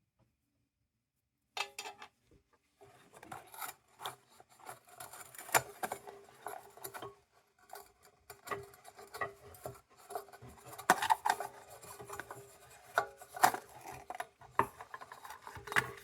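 Irregular scraping and rubbing with many small clicks and knocks, from hands and tools working parts off an old Delta Powerlight battery lantern. It starts after a second and a half of near silence.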